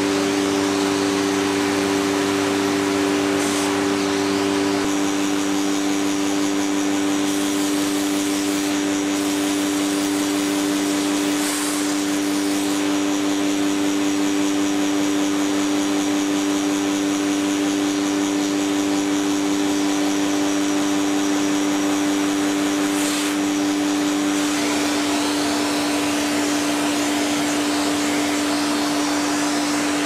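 Vacuum cleaner running steadily, a rush of air under a constant pitched motor hum.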